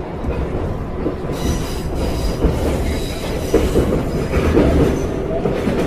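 Metro train car running: a steady rumble of wheels on the rails, with a faint high wheel squeal from about a second and a half in.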